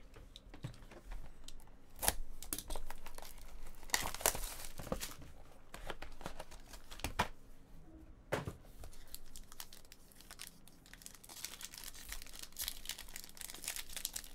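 Plastic wrapping on trading-card boxes and packs being torn open and crinkled: irregular sharp rips a second or two apart, turning into a denser run of crackling near the end.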